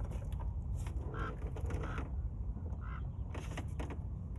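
Two short squeaks, about two seconds apart, among light knocks and clatter of parts being worked loose during intercooler removal, over a steady low rumble.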